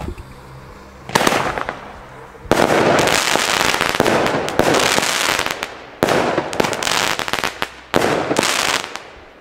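Pyrotrade Zombie 1 firework battery firing its shots: a quiet first second, then sharp reports about 1, 2.5, 6 and 8 seconds in. Each is followed by a dense crackle from the breaking stars that dies away over a second or more.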